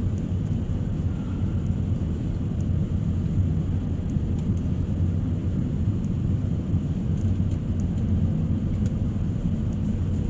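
Airliner cabin noise: the steady low drone of the jet's engines and airflow heard from inside the passenger cabin.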